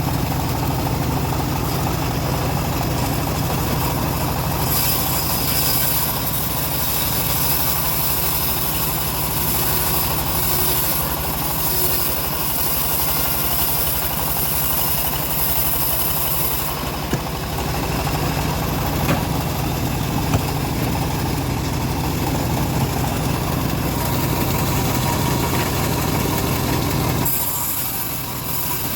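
Wood-cutting band saw running steadily with a low machine hum, slicing timber; a louder high hiss comes in for much of the first half and again near the end.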